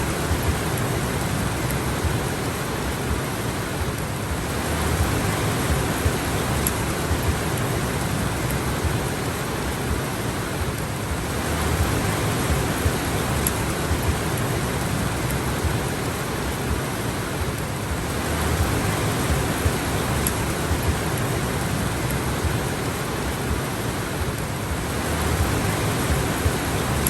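Steady heavy rain, a dense even hiss with slow swells in intensity every six or seven seconds and scattered small drop ticks.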